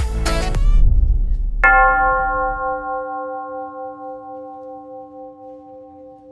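Background music cuts off about a second in; then a single bell tone is struck once and rings on, fading slowly with a gentle wavering in its tone.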